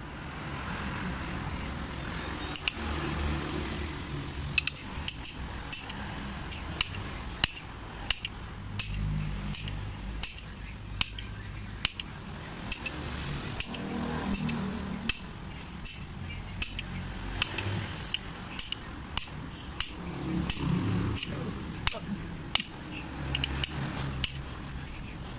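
Small metal diesel injection pump part clicking and clinking against the steel anvil of a bench vise: irregular sharp metallic taps, about one or two a second, over a low hum.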